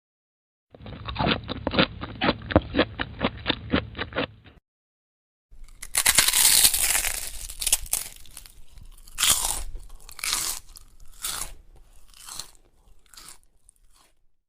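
Bite sound effects: first a run of rapid crunches, about four a second, duller in tone; then, about five seconds in, a loud crunchy bite followed by chewing crunches roughly a second apart that grow fainter.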